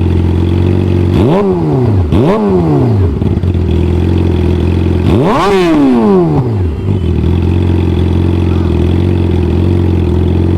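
Yamaha R6 inline-four sport bike engine through an Austin Racing carbon exhaust, idling and given three quick throttle blips, about one, two and five seconds in. Each blip rises sharply in pitch and falls back to idle, and the third goes highest.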